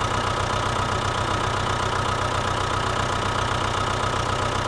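Tractor engine idling steadily with an even, rapid pulse.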